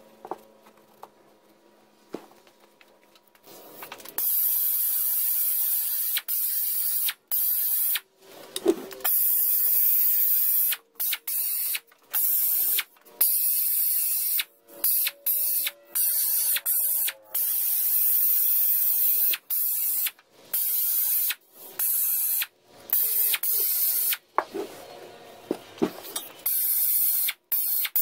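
Handheld rotary tool with a small wire wheel, run in repeated short bursts against an outboard lower unit gearcase to strip the paint where it is about to flake off. It starts about four seconds in with a loud, hissing whirr and cuts on and off many times.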